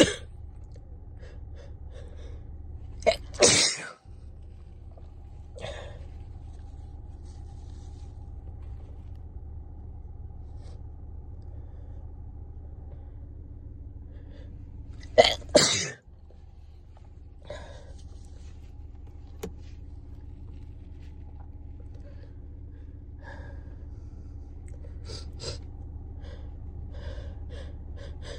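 Two loud sneezes from a person with a head cold, one about three seconds in, just after a short catch of breath, and another about fifteen seconds in. Quieter sniffles and breaths fall between them, over a steady low hum.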